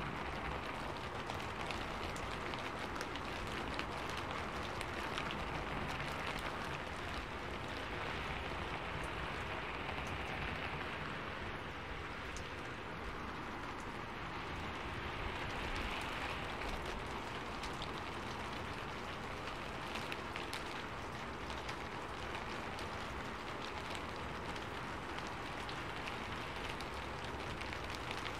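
Steady rain: an even hiss scattered with the sharp ticks of individual drops.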